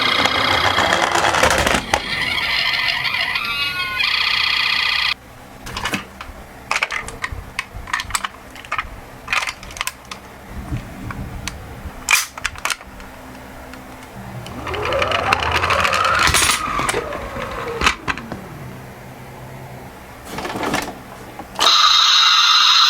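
Toy minicar ambulance siren sounding in steady electronic tones, then scattered light clicks and knocks of small toy cars rolling down a slope, with a rising-and-falling siren wail midway.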